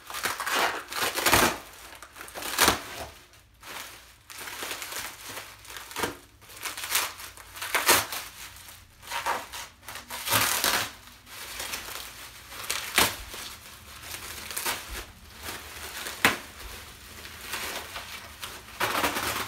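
Plastic bag and bubble wrap being cut and pulled off a packed car seat, crinkling and rustling in uneven surges with a few sharp crackles.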